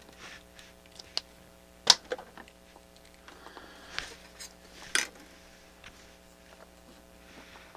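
Scattered light clicks and taps of tester probes and small tools on LED backlight strips, with a sharp click about two seconds in and another near five seconds, over a faint steady hum.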